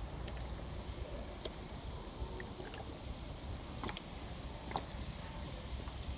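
Carbonated cola glugging and gurgling out of an upturned plastic bottle into a tray of cola, fizzing as it goes, with a few sharp clicks.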